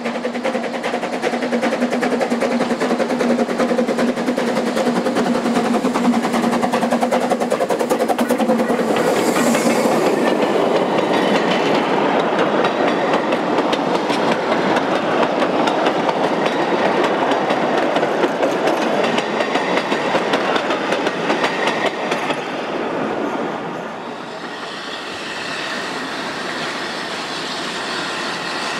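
A train of narrow-gauge slate wagons carrying riders rolls past on the rails, rumbling and clicking over the rail joints, with a steady hum as it approaches. About 23 seconds in the sound drops to a quieter, even rush of a fast-flowing river with a train in the distance.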